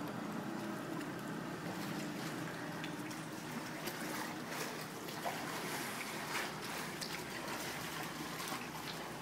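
Water trickling and splashing close beside a paddled kayak: drips and small splashes from the paddle strokes over a steady wash of water.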